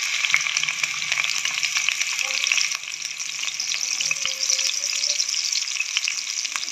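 Thinly sliced onions sizzling hard in hot cooking oil, just after being dropped in: a loud, steady frying hiss full of tiny crackling pops.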